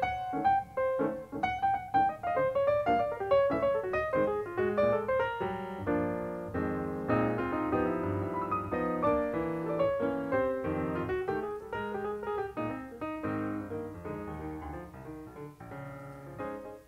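Background piano music: quick runs of single notes give way to fuller held chords, and the music fades gradually toward the end.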